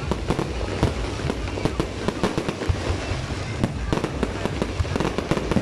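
Electrically fired fireworks display going off: a rapid, irregular string of sharp pops and crackling bangs, several a second, as shells and comets launch and burst.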